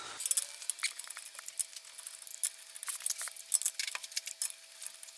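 Scattered light metallic clicks and clinks as the front wheel is hung back on the hub, over a faint steady hum of a few tones.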